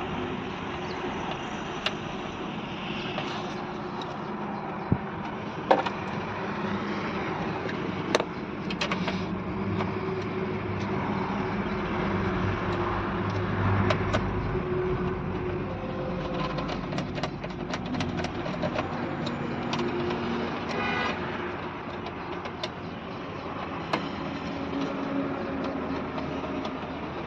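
Scattered clicks and taps of a screwdriver and plastic fuse-box parts being worked under a truck's dashboard, over a steady hum of vehicles in the background, with a brief toot about three-quarters of the way through.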